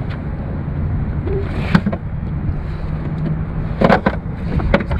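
Wind rumbling on the microphone over open water, with a few sharp knocks, the loudest about four seconds in, as the anchor line is handled on the jet ski. A faint steady hum runs underneath for a couple of seconds in the middle.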